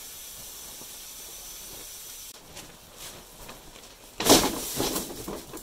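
A big sack of fumed silica being tipped over and laid on its side: rustling and crinkling of the sack, then a loud crumpling thump about four seconds in. Before that there is a steady hiss that stops about two seconds in.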